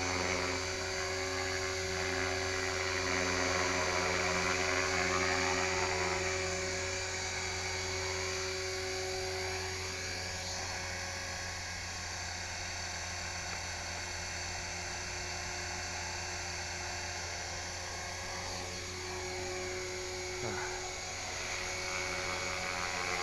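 HK-450GT electric RC helicopter in flight: a steady high whine from its electric motor and drive, with the buzz of the spinning rotor. Its pitch dips and rises a few times, around the middle and again near the end.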